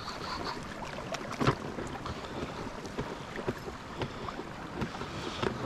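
Water sloshing against a small inflatable raft, with scattered knocks and a sharp click about one and a half seconds in.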